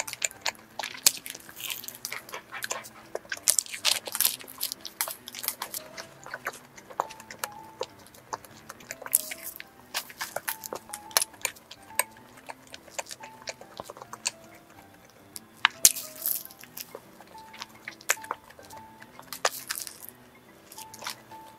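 Close-miked biting and chewing of a glazed New York roll, a round laminated croissant-dough pastry, with crisp crunches from its flaky crust and sugar glaze at each bite. Soft background music plays underneath.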